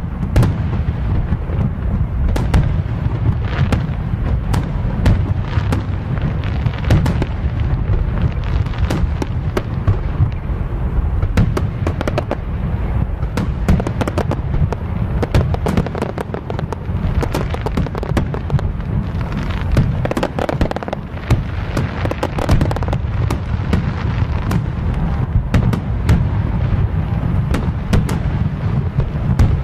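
Aerial fireworks bursting in a dense, continuous barrage: a steady low rumble of booms with many sharp cracks over it.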